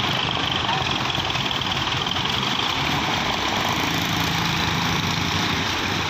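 Farm tractor's diesel engine running steadily while it hauls a trolley heavily loaded with sugarcane.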